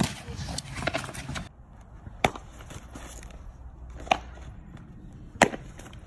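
Outdoor noise that drops at a cut about a second and a half in, then three sharp pops about two seconds apart. The pops fit a softball smacking into a leather catcher's mitt.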